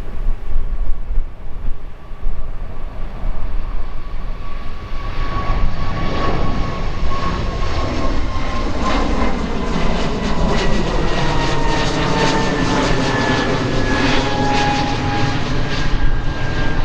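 Airbus A220-100 jet airliner's geared turbofan engines, growing loud about five seconds in. Their roar carries whining tones that slowly fall in pitch as the plane goes by.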